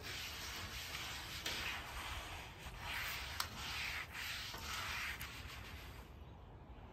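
Wet cloth rag rubbing back and forth across a soapy griddle top in a series of swishing wipe strokes, washing off the factory pre-oil. There is a small tick about three and a half seconds in, and the strokes grow quieter near the end.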